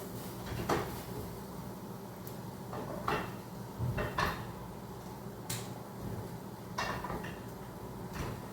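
Kitchen handling noises: about seven separate knocks and clacks of cookware and cupboard doors being handled, over a steady low hum.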